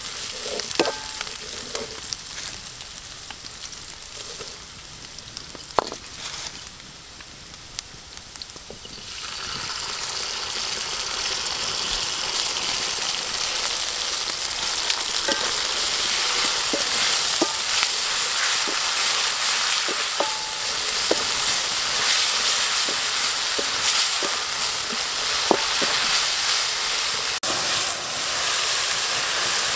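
Julienned ginger and red chillies sizzling in an oiled wok, with short taps and scrapes from a wooden spatula stirring them. About nine seconds in, the sizzle grows much louder and stays that way.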